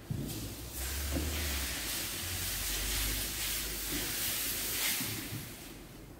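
Duplex Jet Vac Ultima steam cleaner hissing at its head as it is worked over a car bonnet, over a low steady hum from the machine. The hiss starts about a second in and fades away near the end.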